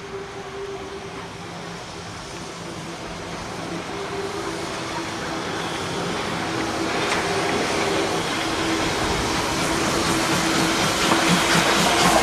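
Class 65.10 steam tank locomotive hauling a passenger train, growing steadily louder as it comes near, with a fast rhythmic clatter from about seven seconds in that is loudest near the end as the coaches pass close by.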